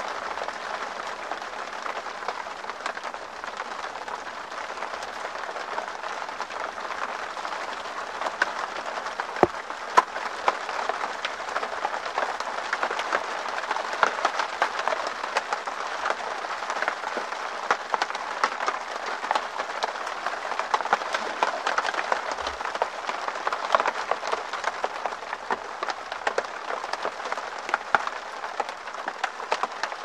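Rain falling on a tent: a steady hiss of rain on the fabric, dotted with many small sharp drop hits and now and then a louder one.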